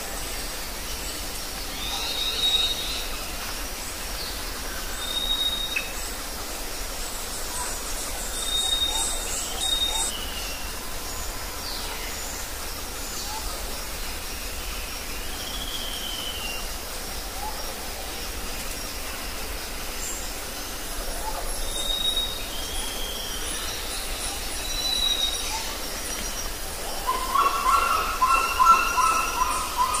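Forest ambience: a steady background hiss with scattered short, high bird whistles and a few gliding calls. Near the end comes a louder run of rapid repeated bird notes.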